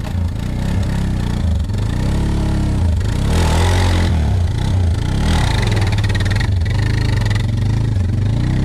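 Suzuki DR650's single-cylinder four-stroke engine running at a low, uneven idle, with short bursts of throttle about three and five seconds in as the bike is manoeuvred on the mud.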